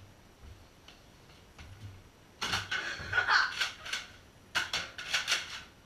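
Clattering clicks and knocks of a Nerf blaster battle with children scuffling and running: a dense burst lasting over a second about halfway through, then a shorter burst of sharp clicks about two seconds later.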